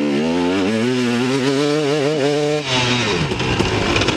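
KTM 250 SX single-cylinder two-stroke dirt bike engine running in second gear, with no clutch use on its Rekluse auto clutch. The revs are held with small wavers, then fall off about two and a half seconds in and run rougher after that.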